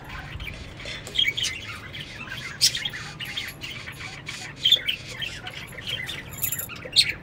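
Birds chirping and squawking in many short, scattered calls, some louder than others.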